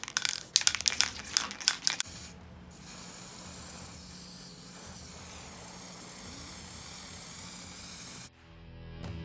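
Aerosol spray-paint can spraying in a steady hiss for about five seconds, cut off abruptly near the end. It is preceded by about two seconds of rapid clattering clicks.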